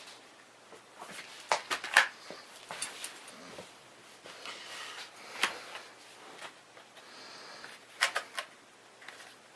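Scattered clicks and knocks of computer hardware being handled: cables, connectors and a hard drive being moved and fitted. The sharpest clicks come about two seconds in, in the middle, and near the end.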